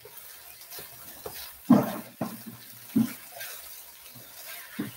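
Wooden spoon stirring chopped chicken and vegetables in a nonstick skillet over a faint sizzle, with a few short knocks as the spoon meets the pan.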